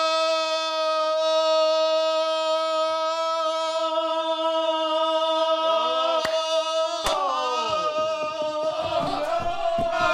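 A man's long, loud 'goooal!' yell, soccer-commentator style, held on one steady pitch. About six seconds in, two sharp clicks are heard and other voices start to join, and near the end a second man joins the yell.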